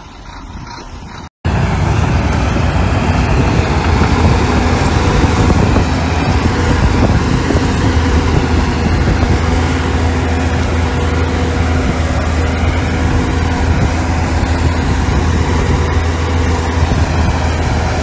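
Bulldozer's diesel engine running loud and steady. A little over a second in, a brief drop-out, after which it comes in much louder.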